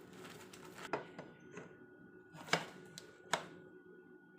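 A few sharp clicks and knocks of hard parts being handled as a pruning attachment is fitted onto its extension pole and its screw tightened. The two loudest come about two and a half and three and a half seconds in.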